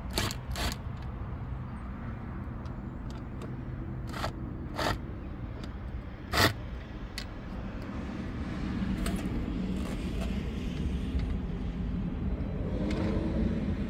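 Sharp clicks and scrapes of a plastic cover plate being worked loose from a trailer's camera mount, a handful of them in the first half. A low steady rumble builds in the second half.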